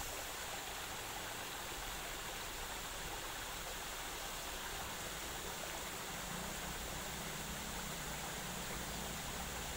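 Shallow stream flowing, a steady rushing hiss of water. A faint low hum joins it about six seconds in.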